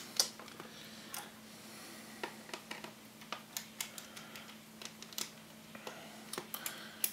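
Faint, irregular small clicks and ticks of a screwdriver backing out the screws of a laptop's bottom panel, with light handling of the case.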